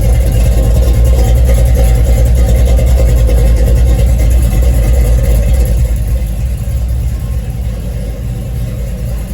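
LS-swapped 5.3-litre V8 in a 1989 box Chevy running through a turndown exhaust, with a deep, steady exhaust note. It is louder for the first five or six seconds, then settles lower.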